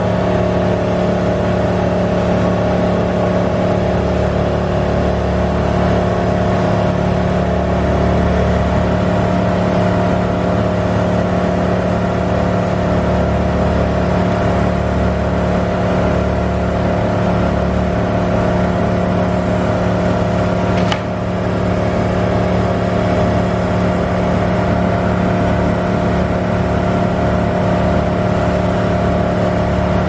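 Bucket truck's engine running steadily at a constant speed, powering the raised aerial boom. A single sharp click about two-thirds of the way through.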